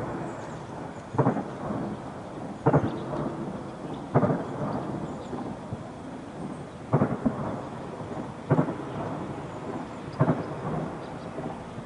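Distant weapons fire in a war zone: about seven sharp booms, roughly every one and a half seconds, each followed by a rolling echo.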